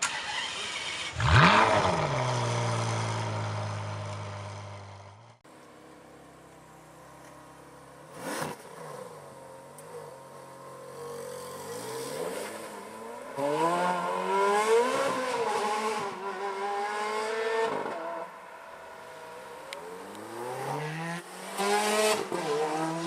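Ferrari 430 Scuderia's V8 engine accelerating hard. A sharp rev about a second in is followed by a held note that cuts off suddenly. Later the engine climbs in pitch through the gears, with quick drops at the upshifts, first in the middle and again near the end.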